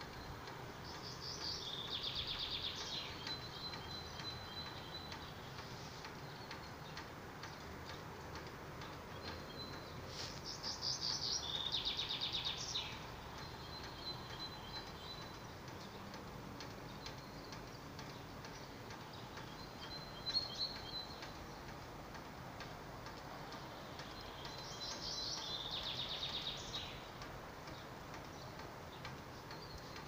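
A small songbird singing a short, fast trilled phrase three times, about ten seconds apart, with fainter thin high notes between the songs and one brief sharp chirp about twenty seconds in.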